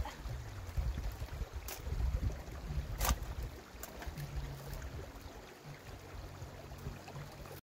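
Low wind rumble on the microphone, with two faint sharp clicks about a second and a half and three seconds in. The sound cuts off abruptly just before the end.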